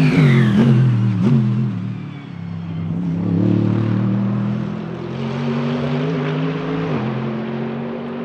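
Mercedes-AMG GT3 Evo race car's naturally aspirated V8 passing close, its note falling in pitch as it goes by, then pulling away under full throttle with an upshift about seven seconds in, fading into the distance.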